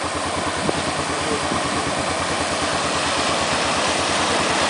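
Toyota Tacoma pickup towing a loaded trailer through deep floodwater: its engine runs under load beneath the rush and splash of the bow wave, growing louder as it approaches.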